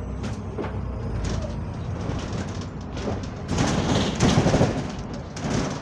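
Double-decker bus with a leaking turbo, heard from inside on the upper deck: the diesel engine runs with a steady low drone, then a louder rush of noise comes in about three and a half seconds in and lasts about a second and a half as the bus pulls away.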